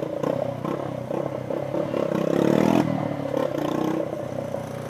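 Small motorcycle engine running in city traffic. About two seconds in it gets louder, then drops off suddenly just before the three-second mark.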